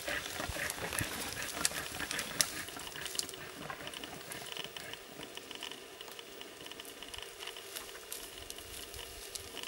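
Caribou moving through dry low shrubs: rustling and crackling with sharp clicks, busiest and loudest in the first few seconds, then fading. From about three seconds in, a rapid high pulsing comes and goes in the background.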